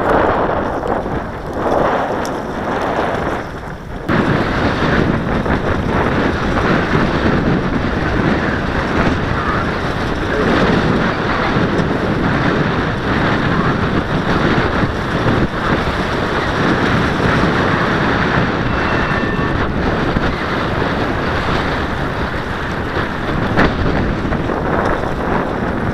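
Strong gusty wind buffeting the microphone, a steady rushing noise that gets louder after an abrupt change about four seconds in.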